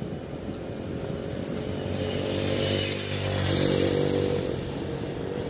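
A motor vehicle's engine passing close by, growing louder to a peak about four seconds in, then fading with a slight drop in pitch as it goes by.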